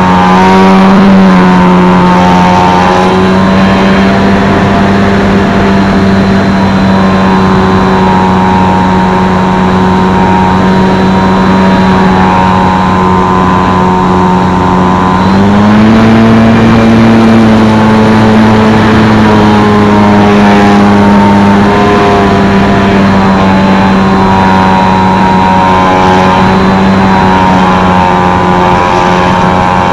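Brushless electric motor and propeller of a Multiplex FunCub RC plane in flight, picked up by a camera on the wing: a loud steady whine over rushing air. The pitch rises about halfway through as the throttle is opened, holds for several seconds, then settles back.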